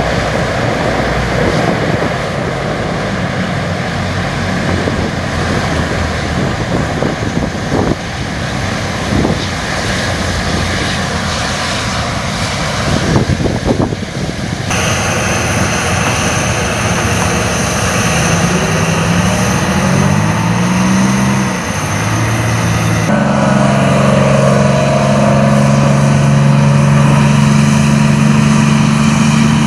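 Military aircraft engines and rotors running loudly, in several cut-together stretches; a pitch glide near the middle, then a steady low drone with strong hum tones near the end.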